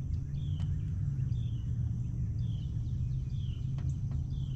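A bird repeating a short falling call about once a second, over a steady low hum.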